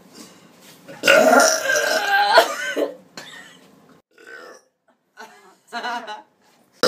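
A woman's long, loud burp lasting about two seconds, starting about a second in.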